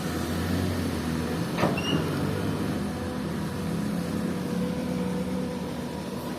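Komatsu PC-200 excavator's diesel engine running steadily, with one sharp knock about a second and a half in.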